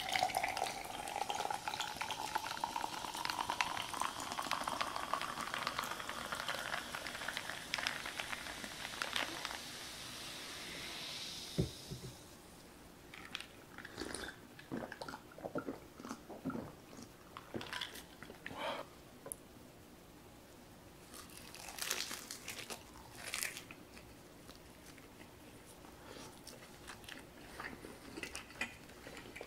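Canned soda poured into a glass of ice, fizzing hard, with a rising tone as the glass fills, for about twelve seconds. Then a few scattered gulps and small sounds, and crunchy bites into a seaweed-wrapped triangle rice ball near the end.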